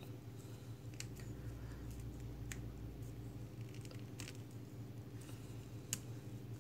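Faint clicks and rubbing of hard plastic as an action figure is handled and its swap head is pressed onto the neck peg: a few sharp ticks over a steady low hum.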